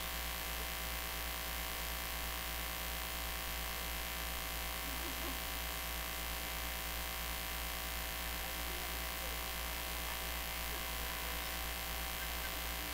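Steady electrical mains hum with a faint buzz from an amplified sound system with nothing playing through it: an unchanging drone with many evenly spaced tones.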